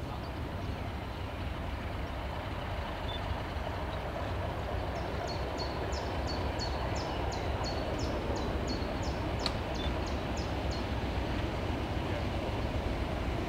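Diesel locomotive approaching, its engine a low rumble that slowly grows louder. Partway through, a bird repeats a short high call about twice a second for several seconds.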